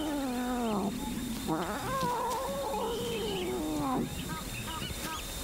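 Lion cub giving two long, wavering mewing cries, the cries of a hungry cub begging to suckle. The first falls in pitch and ends about a second in; the second runs until near the four-second mark and ends in a downward slide. Faint short chirps follow.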